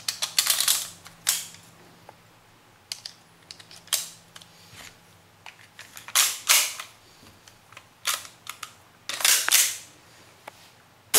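Sharp plastic-and-metal clicks and snaps of a Tokyo Marui Glock 17 gas blowback airsoft pistol being put together by hand: the slide fitted onto the frame and the gas magazine pushed into the grip, in several short clusters, the most prominent about six seconds in and again near nine seconds.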